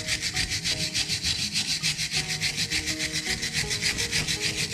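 Fast back-and-forth hand scrubbing of rusty steel, about seven even rasping strokes a second, the way a wire brush is worked over a rusted wrench.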